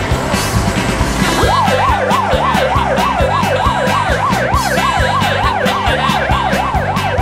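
Fire truck siren in a fast yelp, its pitch sweeping quickly up and down about three times a second, coming in about a second and a half in. Underneath runs background music with a steady drum beat.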